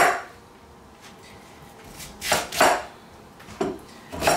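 A sharp stainless-steel kitchen knife chopping through a raw sweet potato and striking a wooden cutting board in separate strokes: one at the start, two close together about two seconds in, a lighter one, and another near the end.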